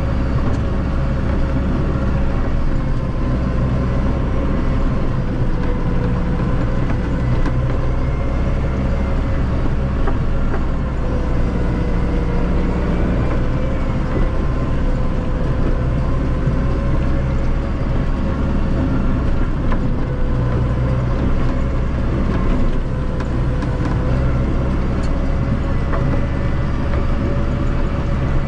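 Massey Ferguson 5445 tractor's 4.4-litre Perkins four-cylinder common-rail diesel running steadily as it drives, with a steady whine that wavers slightly in pitch over a deep engine hum.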